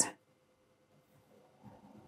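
Near silence, then faint handling noises near the end as black embroidery thread is drawn through a felt doll's face.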